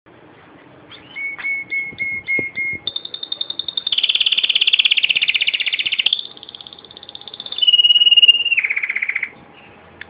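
Domestic canary singing in rolled phrases. A few slow, evenly repeated whistled notes give way to very fast trills, the loudest about four seconds in. A lower trill then ends the song just after nine seconds.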